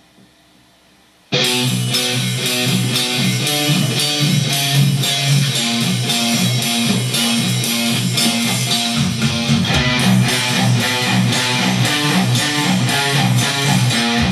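Heavily distorted electric guitar playing a fast death-metal riff. It comes in suddenly about a second in, after faint hiss.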